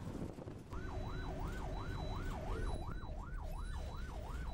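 Police vehicle siren yelping, a rising-and-falling wail about three times a second that starts under a second in, over a steady rumble of wind and road noise.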